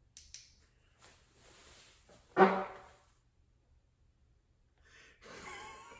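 A man's fart about two seconds in: one loud, short pitched blat that starts suddenly and fades within a second.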